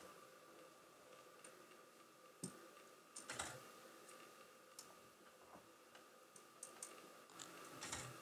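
Near silence with scattered faint clicks and ticks; a brief cluster of louder clicks comes about three seconds in and again near the end.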